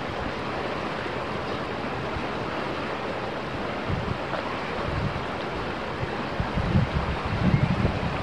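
Steady rushing of a shallow creek flowing over rocks, with uneven gusts of wind buffeting the microphone from about halfway through, strongest near the end.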